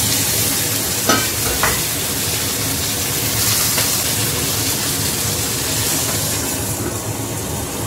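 Fish frying in a little oil in a frying pan, sizzling steadily.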